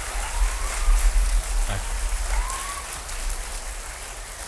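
Audience applauding: a steady, dense clatter of many hands clapping, tapering off slightly near the end.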